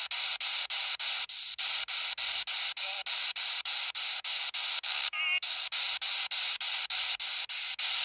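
Spirit box (a handheld radio-sweep device) scanning through radio stations: static chopped into short bursts about four times a second. About five seconds in, a brief warbling radio fragment breaks through.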